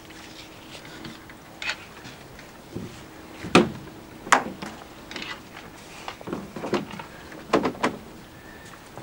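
A series of sharp knocks and taps as a nylon cam strap is handled against a canoe hull and roof-rack bar, the two loudest about three and a half and four and a half seconds in, then a quicker run of taps a few seconds later.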